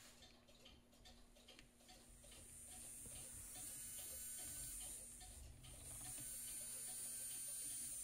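Small 12-volt DC motor running freely on a bench power supply, a faint, high-pitched electric whine. It builds up a couple of seconds in, dips briefly near the middle, and cuts off at the end. The motor had earlier been jammed and now spins.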